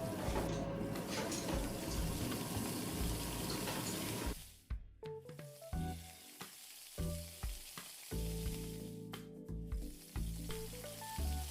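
Pancakes frying in a pan on medium heat: an even sizzle that drops off suddenly about four seconds in, after which background music with steady notes carries on over a fainter sizzle.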